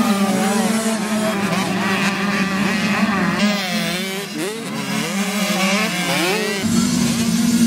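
Several youth motocross dirt bikes racing past, their engines revving up and down as they accelerate and ease off, with the pitches overlapping. A steady low engine drone underneath fades for a few seconds in the middle and comes back near the end.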